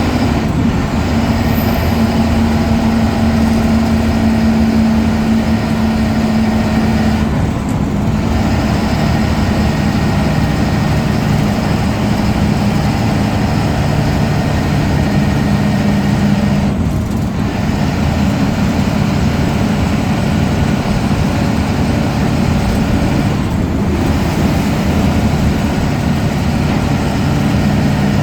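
Ashok Leyland BS4 bus diesel engine running steadily and loud, its note briefly dipping and changing pitch three times.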